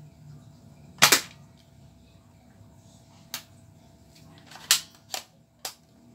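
Toy foam dart blaster firing once with a sharp snap about a second in, followed by four shorter plastic clicks as the blaster is hand-primed for the next shot.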